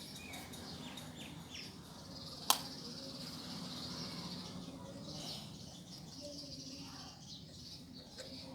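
Faint background birdsong and insect chirping over a low hum, with one sharp click about two and a half seconds in.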